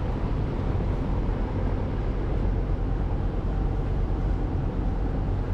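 Tour boat engine running with a steady low hum, over a steady rush of water.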